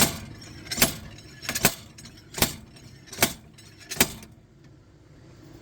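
Slide hammer striking its stop as it is yanked against a stuck front hub assembly on a 2005 Toyota Prius: six sharp metal clanks, evenly spaced, which stop a little past four seconds in. The hub is being pulled because its wheel bearing is badly worn.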